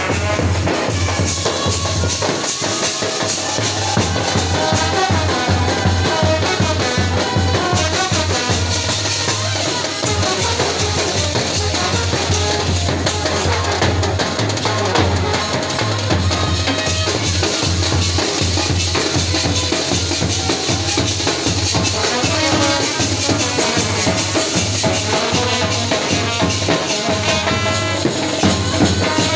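Indian procession band playing loud music: fast, dense drumming and rattling percussion with a steady low bass under a melody line.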